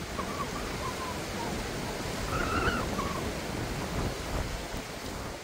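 Steady rushing noise of a rocky mountain stream, with faint wavering high calls about a third of the way in and again near the middle.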